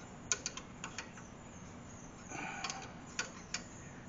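Faint, irregular clicks of a wrench working on metal compression fittings as they are snugged up on transmission cooler lines: a quick cluster in the first second and a couple more near the end.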